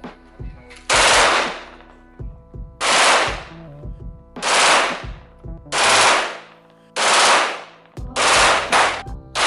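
Glock 18 9 mm pistol firing on full auto in about seven short bursts, each under a second long, with the last two close together near the end.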